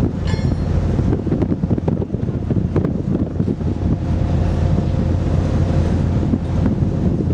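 Wind buffeting the microphone, a loud gusty rumble, over a low steady hum. A brief high chirp comes about a third of a second in.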